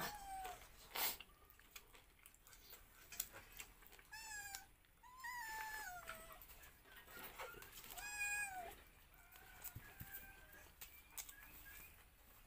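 A domestic cat meowing repeatedly, five or six calls of under a second each, with one longer meow near the middle that falls in pitch at its end. A sharp clack is heard about a second in.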